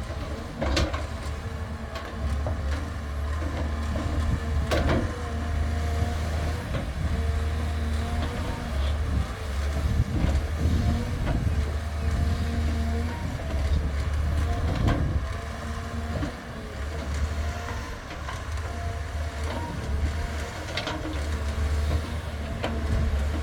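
A heavy engine drones steadily, swelling and easing, with a few sharp knocks.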